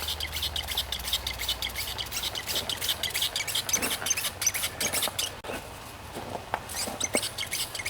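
Small birds chirping and chattering quickly in rapid high-pitched chips, busiest for the first few seconds and then thinning out.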